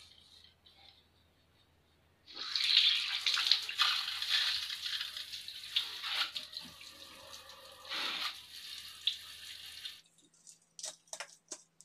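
Handheld bidet sprayer spraying water, starting about two seconds in and surging and easing in strength. A few sharp clicks follow near the end.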